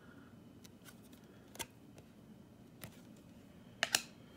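Trading cards being handled: a few light clicks and taps of card stock and fingers, the loudest a quick double click near the end.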